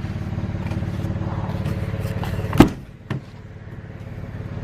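A vehicle engine idling with a steady low hum, then a single loud clunk about two and a half seconds in and a lighter click just after, after which the idle sounds quieter.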